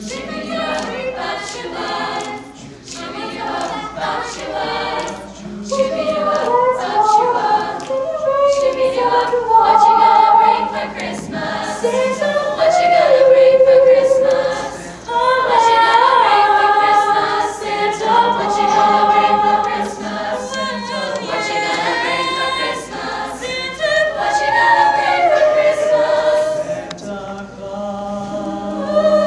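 High school girls' show choir singing in harmony, a solo voice at the microphone carried over the group, with long held notes.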